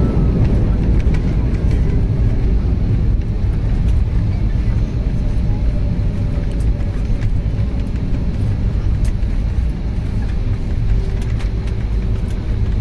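Cabin noise of an Airbus A320neo on its landing rollout: a steady low rumble of the wheels on the runway and the engines, easing slightly as the aircraft slows.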